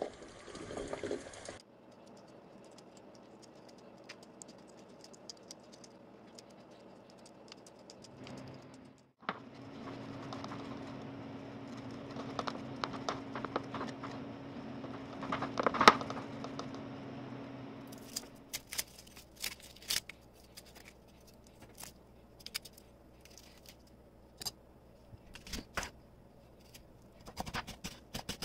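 Boiled egg rubbed against a metal box grater over a bowl, a steady scraping. From about two-thirds of the way through, a knife cuts an onion on a wooden chopping board in irregular sharp clicks.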